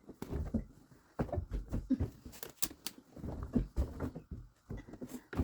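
Laundry being handled at a washing machine: cloth rustling and soft knocks and clicks in irregular bursts as towels are loaded into the drum.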